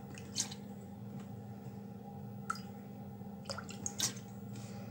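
Isopropyl alcohol dripping from a nearly empty plastic bottle into a glass measuring jug of liquid: a few separate, irregularly spaced drips and small splashes, with a cluster of them near the end.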